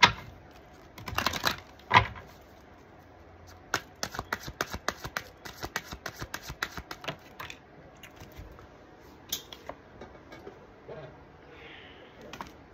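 A deck of oracle cards being shuffled by hand: a few loud slaps in the first two seconds, then a fast run of snapping clicks for about three and a half seconds, then scattered softer taps.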